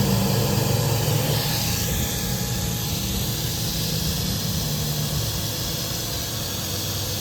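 DJI Agras T40 spray system running: the pump and the two centrifugal atomising sprinklers whir with a steady spraying hiss, one sprinkler turning at a different speed from the other, which the technicians take as the fault to repair.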